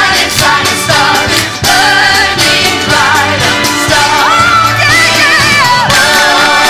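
Stage-musical cast singing with band accompaniment over a steady beat. About four seconds in, a high note with vibrato is held and then bends down near six seconds.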